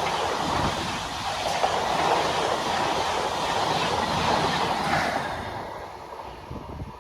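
Train passing, its wheels running loudly over the rails; the noise falls away from about five seconds in as the train goes by.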